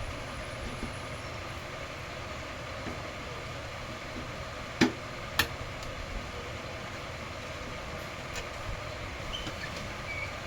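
Steady background rumble and hiss with two sharp clicks about half a second apart near the middle.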